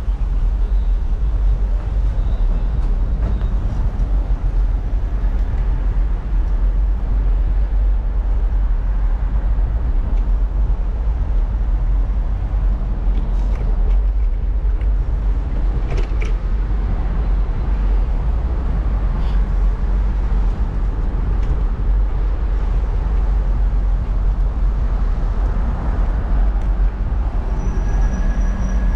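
Steady wind rumble on the microphone of a bicycle-mounted camera riding over brick paving, with city road traffic behind it.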